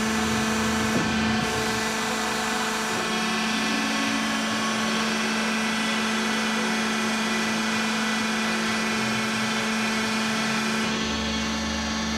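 Metallkraft BMBS 290x290 CNC-DG-F automatic metal-cutting band saw running with a steady mechanical hum and whine; a deeper hum joins near the end.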